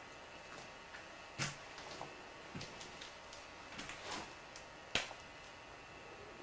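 A few scattered knocks and gritty scuffs, the loudest about a second and a half in and again about five seconds in, over a faint steady hiss: footsteps and camera-handling noise of someone walking across a tile floor strewn with demolition grit.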